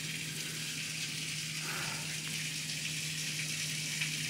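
Heavy rain pouring down steadily and splashing on a flooded patio, heard from indoors through a shut door, with a faint steady low hum underneath.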